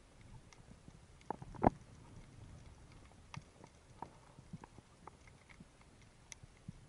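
Underwater sound picked up by a diving camera: scattered faint clicks and knocks, with a louder double thump about a second and a half in.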